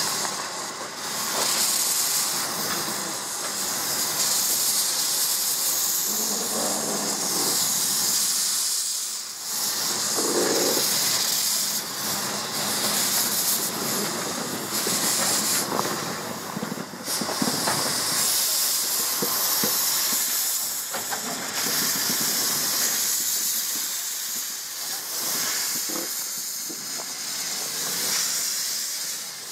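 Steam hissing steadily from the open cylinder drain cocks of Avonside 0-4-0T Marchlyn, a small narrow-gauge quarry tank locomotive, as it moves slowly along the track.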